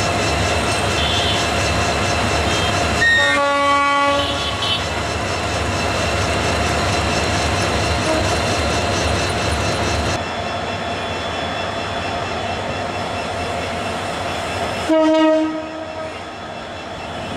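Diesel locomotive moving along the track with its engine running steadily. Its horn sounds twice: a blast of about a second roughly three seconds in, and a shorter blast near the end.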